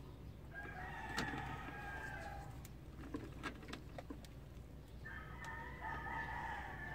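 A rooster crowing twice, each crow about two seconds long, with a few faint clicks between the crows.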